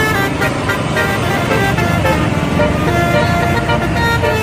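Indonesian bus 'telolet' horn playing a quick tune of short notes that step up and down in pitch, over the bus's running engine.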